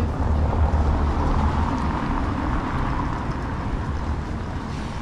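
A road vehicle passing close by on a city street: a low rumble and a rush of road noise that swell over the first seconds and fade away toward the end.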